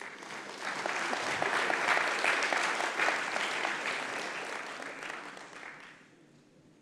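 Congregation applauding, building up over the first two seconds and dying away about six seconds in.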